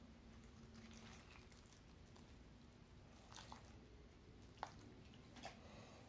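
Very faint: milk poured from a paper carton onto flour in a frying pan, with soft wet squishes and a few light clicks, the clearest about four and a half seconds in.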